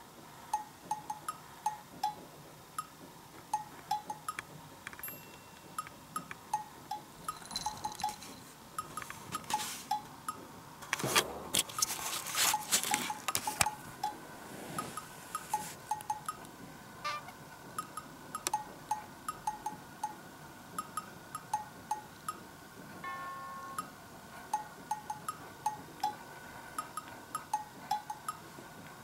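Light background music of plinking, bell-like notes in a bouncy pattern. About eleven seconds in, a few seconds of cloth rustling rise over it.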